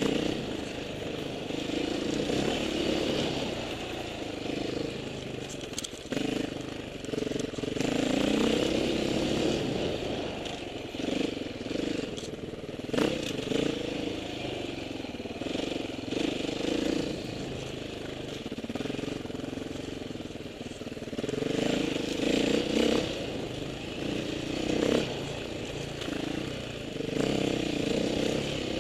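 Off-road motorcycle engine running under changing throttle, its pitch rising and falling as it is revved and eased off, with a few sharp knocks from the bike over rough ground.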